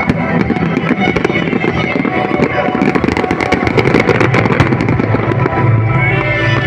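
Fireworks going off in a rapid run of bangs and crackles over music. The crackling is densest a few seconds in.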